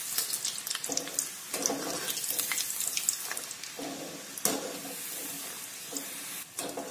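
Batter-coated peanuts deep-frying in hot oil in a steel kadai: a steady sizzling hiss with many small crackles, as a wire skimmer stirs them in the oil now and then.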